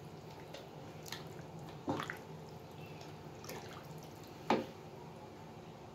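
Silicone spatula stirring a simmering coconut-milk vegetable stew in a wok: soft wet stirring with four short, sharp wet plops or knocks about a second apart, over a steady low hum.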